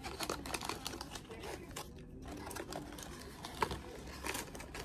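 Koala biscuit snack packaging crinkling and rustling in irregular bursts as it is handled and opened by hand.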